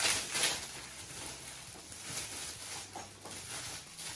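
Gift packaging rustling and crinkling as it is handled and opened, in irregular soft bursts, the strongest right at the start.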